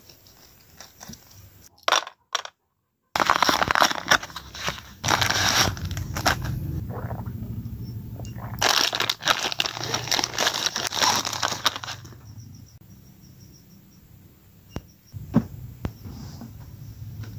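Handling noise while restringing an acoustic guitar: rustling and crinkling with many scattered clicks, then a quieter stretch of cloth wiping over the guitar's top near the end.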